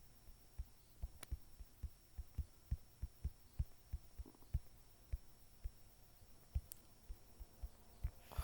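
Dull low thumps at an uneven two or three a second over a faint hum.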